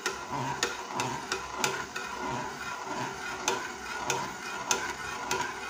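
A spoon stirring hot water in a pot into a whirlpool for poaching eggs, with irregular clicks as it knocks against the side, over a steady hiss.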